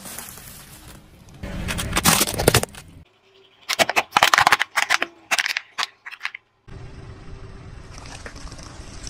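A car tyre slowly rolling over and crushing things in turn: a bag of potato crisps crackling and crunching, then a plastic action figure giving a run of sharp cracks, then a bunch of bananas squashing under the tyre over a steady background noise.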